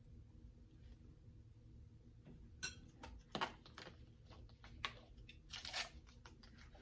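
Plastic water bottle being handled and its screw cap twisted. It makes a string of short crackles and clicks that start about two and a half seconds in, after a stretch of near silence.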